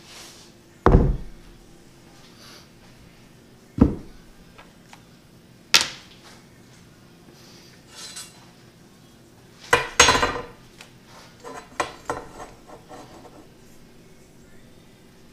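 Scattered sharp knocks and metallic clatters as a plywood box and a metal square are handled on a plywood workbench. The loudest is a burst of clattering about ten seconds in, with smaller knocks after it.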